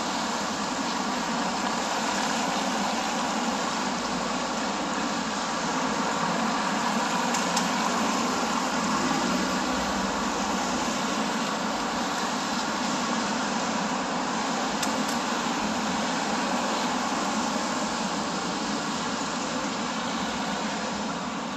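Passing car traffic on a wet street: a steady mix of engines and tyre hiss on the wet road, swelling slightly as vehicles go by.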